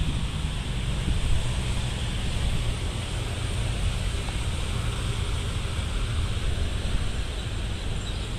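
Wind buffeting the microphone, a steady gusting rumble over a constant outdoor background hiss.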